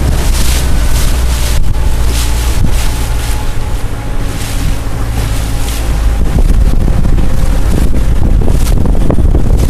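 Wind buffeting the microphone on a boat under way at sea: heavy low rumble and gusting hiss over the rush of water, with a faint steady hum underneath.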